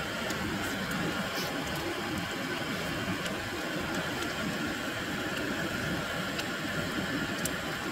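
An old brass pressure stove burning with a steady hiss under a frying pan, with duck slices sizzling and giving off scattered small pops.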